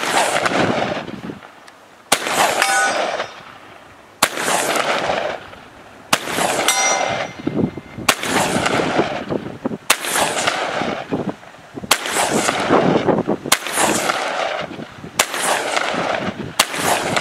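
Shotgun firing slugs, about ten deliberate shots roughly two seconds apart, each followed by a long rolling echo. After a few shots a faint metallic ring follows a moment later: a slug striking a distant steel target.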